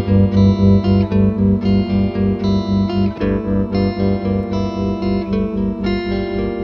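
Instrumental post-rock music: guitar-led, with pitched chords pulsing in a steady, even rhythm.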